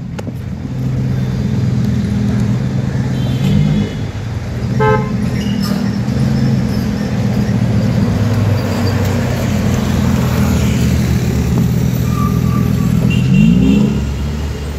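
Lamborghini Huracán Technica's V10 engine running at low speed as the car arrives, with a short rising rev near the end. A car horn toots briefly about five seconds in.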